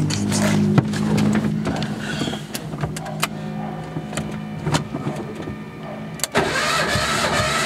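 Peugeot 205 GTI engine cranked on the starter motor for a compression test on cylinder 4. A few knocks and clicks come first, then the cranking starts suddenly about six seconds in and keeps going steadily.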